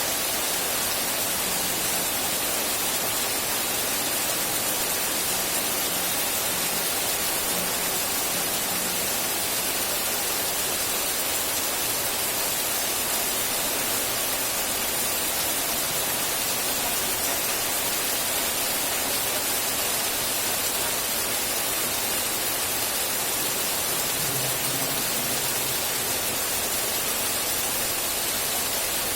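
Steady rain, an even unbroken hiss that stays at the same level throughout.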